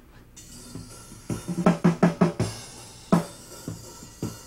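Recorded drum kit playing back. A cymbal wash starts, then comes a quick run of five or so drum hits about a second in, followed by a few single hits.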